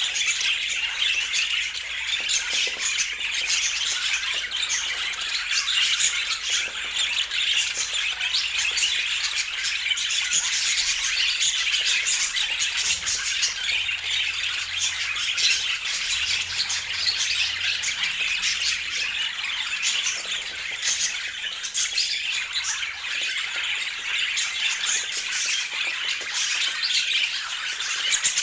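Budgies (budgerigars) chattering and squawking continuously, many fast overlapping calls with no pauses.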